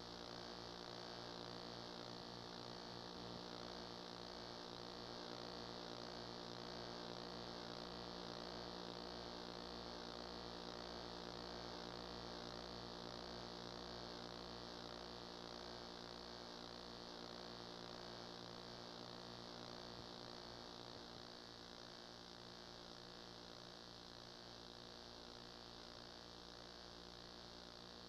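Faint, steady electrical mains hum with a light hiss, the noise floor of an old game-film transfer that carries no field sound.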